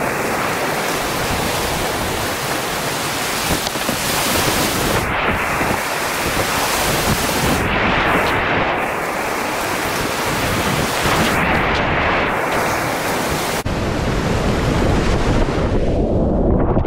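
Whitewater rapids rushing loud and steady around the kayak, heard close up from the boat. A few seconds before the end the sound abruptly turns duller and muffled as the hiss loses its top, with splashing.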